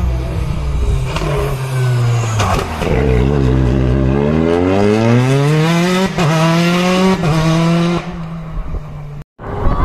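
Citroën DS3 rally car's engine coming off the throttle into a bend, revs falling, then accelerating hard out of it with revs climbing steeply and holding with brief breaks, as the car passes and draws away. Near the end the sound cuts out for a moment and another rally car's engine takes over.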